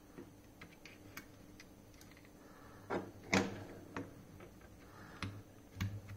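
Light clicks and taps of a cartridge fuse being pressed into the spring clips on a digital multimeter's circuit board, the loudest click about three and a half seconds in.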